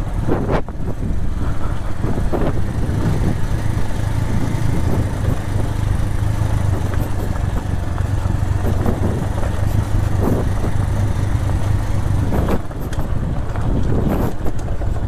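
Motorcycle engine running steadily at low speed down a loose, stony gravel track, a constant low hum over rough road and wind noise. The hum drops away about twelve seconds in.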